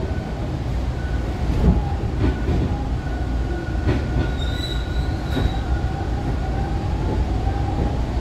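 TTC Line 2 subway train accelerating out of a station: a steady heavy rumble with thin whining tones, one slowly rising in pitch in the second half. A few sharp clicks come from the wheels crossing rail joints.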